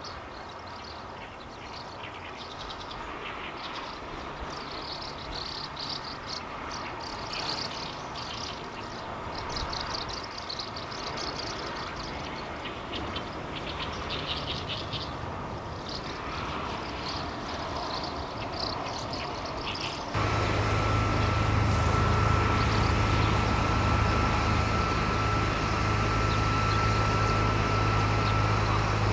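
Small birds chirping repeatedly over a steady low rumble. About two-thirds of the way through, a steady, louder mechanical hum with a thin high whine above it starts suddenly and covers the birds.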